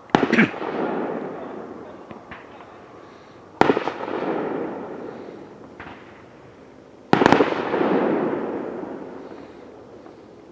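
Fireworks going off: three loud bangs about three and a half seconds apart, each followed by a long fading rumble.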